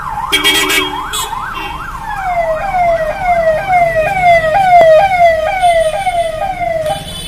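A vehicle's electronic siren, first sweeping quickly up and down, then switching at about two seconds to a repeated falling sweep that slowly drops in pitch. A car horn honks twice near the start.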